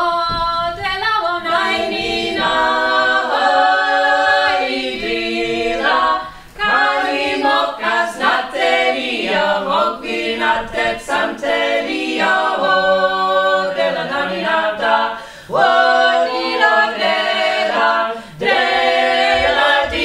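A small mixed group of voices singing a Georgian wedding song unaccompanied, in close multi-part harmony, in long held phrases with brief breaths between them.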